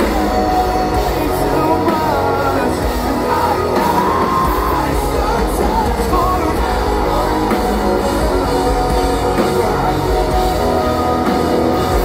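Rock band playing live at full volume: electric guitars, bass and drums.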